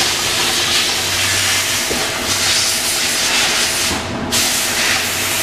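Loud steady hissing rush with a faint hum underneath while a 2004 Ducati ST3 rear rim spins on a test rig for a runout check; the hiss breaks off briefly about four seconds in.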